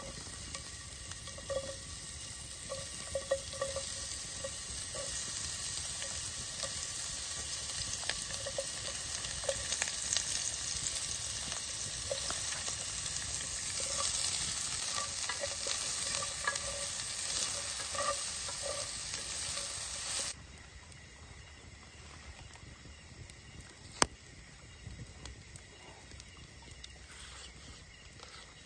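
Food sizzling as it fries in a pan, a steady hiss that cuts off suddenly about twenty seconds in, leaving quieter background with a single sharp click a few seconds later.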